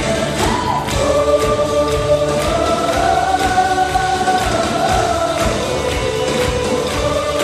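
Gospel choir singing a long held chord that rises in pitch through the middle and falls again, over a steady beat.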